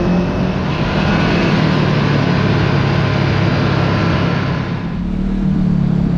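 Kawasaki KRX side-by-side engine running under steady throttle while driving, over a constant hiss of tyres and wind. About five seconds in the hiss falls away and the engine eases off briefly, then pulls again.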